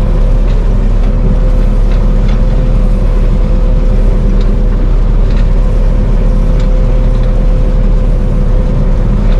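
Combine harvester running steadily while threshing wheat: a constant low drone with a steady whine held at one pitch and a few faint ticks.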